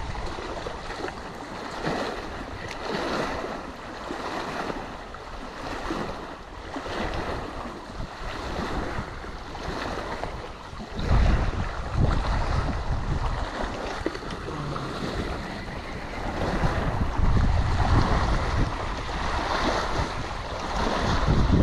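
Wind buffeting the microphone in gusts, strongest about halfway through and near the end, over small waves lapping against the shore.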